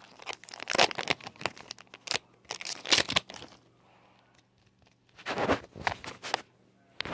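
Foil wrapper of a freshly opened Pokémon booster pack crinkling and rustling in the hands, in short irregular bursts with a pause of a second or so past the middle.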